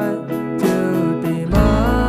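Background music led by a strummed acoustic guitar with a melody over it; a deep bass comes in about three-quarters of the way through.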